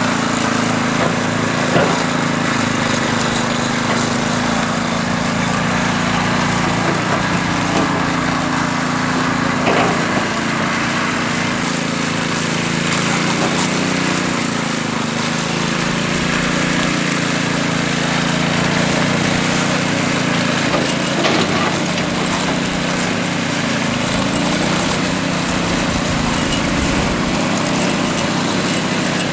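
A concrete power trowel's small petrol engine running steadily, with an occasional brief knock.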